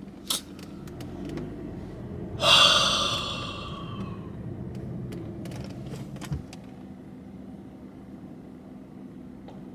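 A loud, breathy exhale from a man in dismay right after a car hit his, about two and a half seconds in, falling in pitch and fading over a second or so. A low steady hum runs underneath inside the car, and it gets quieter after a small thump about six seconds in.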